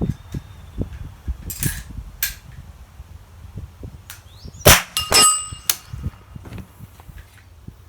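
Suppressed 9mm pistol-calibre carbine firing, with fainter reports before a loud shot about two-thirds of the way in. About half a second after that shot comes a metallic clang that rings on briefly with several clear tones.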